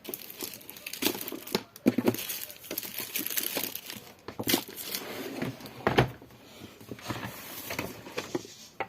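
Rummaging through the drawers of a chest: rustling and crinkling of things being moved, with scattered clicks and knocks, a sharper knock about six seconds in.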